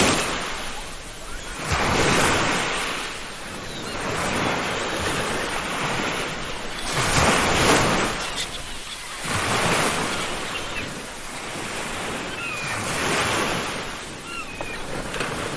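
Ocean surf breaking and washing up a beach, swelling and fading in a new surge every few seconds. A few faint seagull calls come in near the end.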